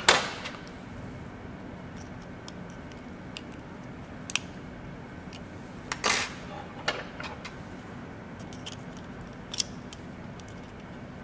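Scattered sharp clicks and cracks from dissecting scissors and the crayfish's hard exoskeleton as the mandible is cut out at its base. There are about half a dozen, several seconds apart, and the loudest come right at the start and about six seconds in.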